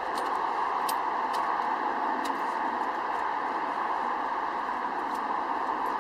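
Steady hiss of rain falling, with a few faint ticks.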